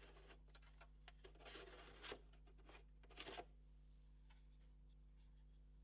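Near silence with a few faint scraping and rubbing handling noises, about a second and a half in and again just after three seconds.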